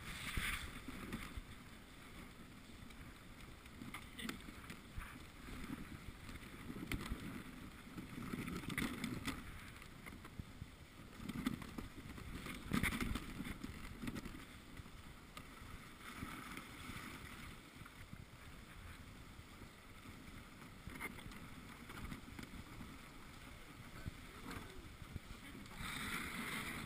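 Wooden dog sled gliding over packed snow behind a husky team: an uneven hiss and rumble from the runners, swelling and easing, with a few sharp knocks from the sled.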